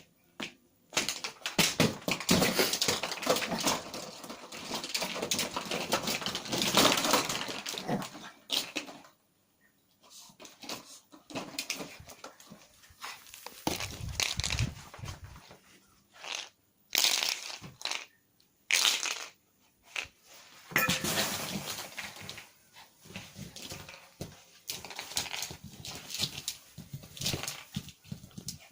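Chihuahua puppy wrestling with a toy that it cannot get its teeth into: bursts of scrabbling, rustling and crunching, with short pauses between bouts.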